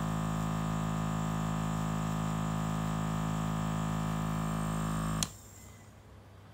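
KKMoon mini airbrush compressor running with a steady motor hum, then cutting off with a click about five seconds in.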